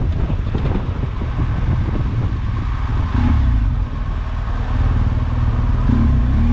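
Motorcycle engine running at low speed, its low rumble rising and falling with the throttle as the bike threads slowly past stopped cars.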